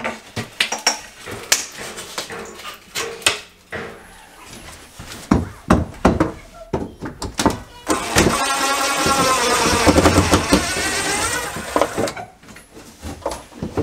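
Wooden trim being pried loose, a run of cracks and knocks, then a cordless drill running for about four seconds, its pitch wavering as the trigger is worked.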